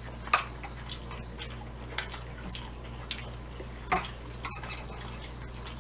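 Metal chopsticks clicking: three sharp clicks about two seconds apart, with a few lighter ticks between, over a steady low hum.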